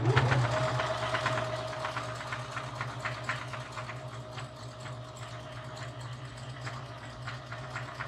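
Electric sewing machine stitching fabric: the motor whines up to speed right at the start, then runs steadily with a regular ticking of the needle stitches.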